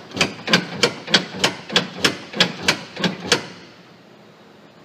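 Polaris Ranger front suspension knocking about a dozen times in a steady rhythm, roughly three knocks a second, as the front wheel is rocked back and forth by hand, then stopping. The clunk is the play from worn lower control arm bushings.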